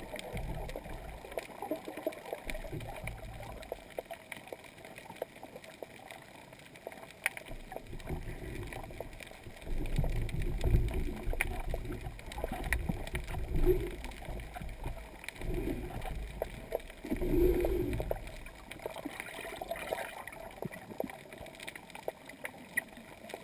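Underwater sound picked up through a GoPro housing: a steady hiss peppered with faint scattered clicks, with low rumbling surges of water moving around the camera, the strongest about ten and seventeen seconds in.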